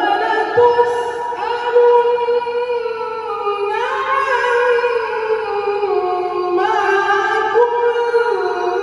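A young man reciting the Qur'an in the melodic tilawah style into a microphone: long held, ornamented vowel lines that step and bend up and down in pitch, rising to a higher phrase about four seconds in and again near seven seconds.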